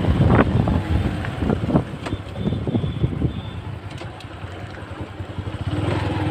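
Motorcycle engine running, picked up by a helmet-mounted camera, with wind buffeting the microphone and scattered knocks. The engine eases off in the middle and picks up again near the end.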